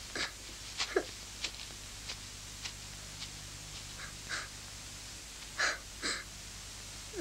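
A small boy sobbing in short catching gasps and sniffles, a few in quick succession near the start, then more spread out, with two stronger sobs near the end.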